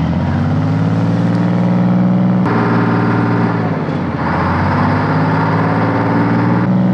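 A 1967 LCVP Higgins landing craft's diesel engine running under way, its note climbing in the first couple of seconds, dipping briefly about four seconds in, then climbing again.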